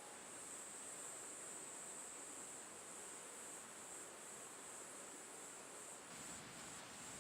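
Faint, steady high-pitched chirring of insects, likely crickets, over a soft hiss of wind and rustling leaves; a low rush of wind comes up about six seconds in.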